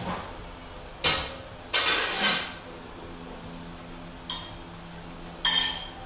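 A fork clinking and scraping on dinner plates during a meal: a few short clinks and scrapes, the loudest and most ringing near the end.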